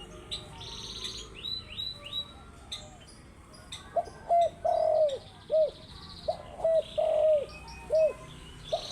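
Spotted dove cooing: from about four seconds in, a run of low, downward-arching coos in repeated phrases, over steady high chirping of smaller birds.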